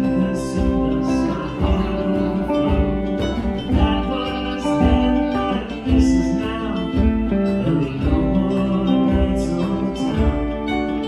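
A live band plays a song: guitars, a keyboard and a pair of hand drums over a steady beat.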